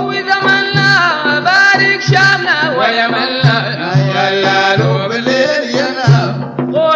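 Sudanese Sufi madeeh (Prophet-praise song): men's voices singing a sliding melody over a deep drum beating steadily.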